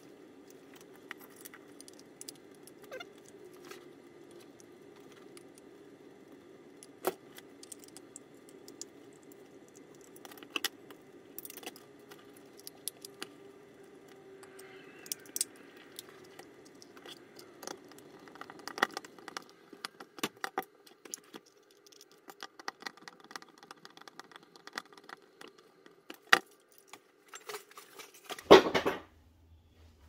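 Scattered clicks, knocks and rattles of hard plastic housing parts and small tools being handled on a workbench while a robotic pool cleaner's swivel cable unit is reassembled, over a faint steady hum. The clicks come more often in the second half, and there is one louder clatter about a second and a half before the end.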